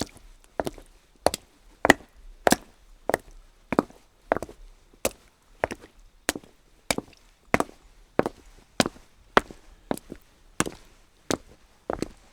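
Footsteps of hard-soled shoes walking on wet cobblestones at a steady walking pace, about one sharp step every 0.6 seconds.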